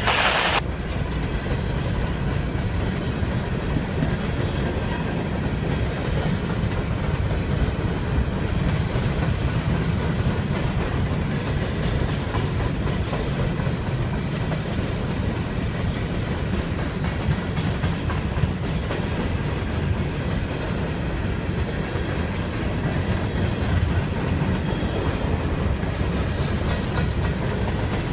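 Freight train of loaded coal hopper cars rolling steadily past: a continuous low rumble with the wheels clicking over the rail joints. A short loud burst of sound cuts off right at the start.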